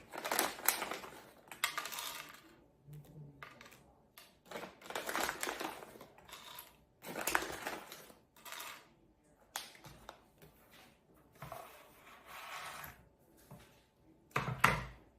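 Pumpkin seeds being handled and cut on a kitchen board: irregular bursts of rattling and crunching, small hard seeds knocking about, with a heavier knock near the end.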